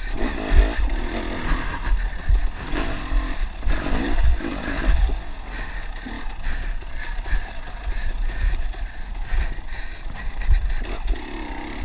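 Dirt bike engine revving up and down as it rides a rough woodland trail, with knocks and clatter from the bike bouncing over the ground and a heavy low rumble of wind on the microphone.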